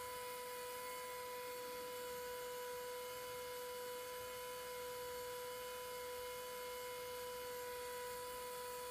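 Small electric motor of a Bohning arrow cresting machine running steadily as it turns the arrow shaft: a constant hum with a steady whine.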